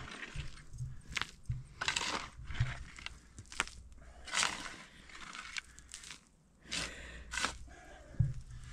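Spade cutting and scraping into stony, gravelly hill soil, a sharp crunch about once a second at an uneven pace.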